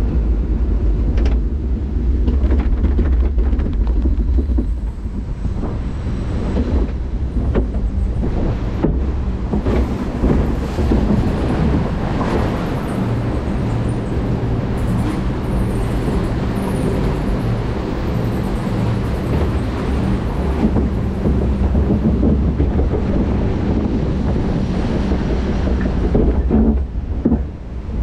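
Log flume ride machinery carrying the boat, heard from on board: a continuous mechanical rumble with a low steady hum, dipping briefly near the end.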